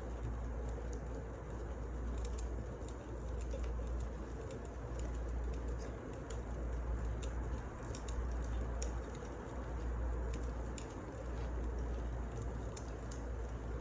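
Wood fire burning in a fireplace: a steady low rush with irregular crackles and small pops of the burning logs.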